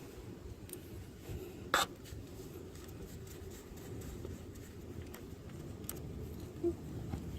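Steady low background rumble with a few light clicks of handling, the sharpest about two seconds in.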